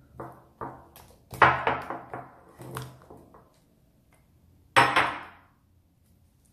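Homemade jiggly slime, still sticky, being squished in a glass bowl and slapped down onto the table by hand: a string of sudden slaps and squishes, the loudest about a second and a half in and another about five seconds in.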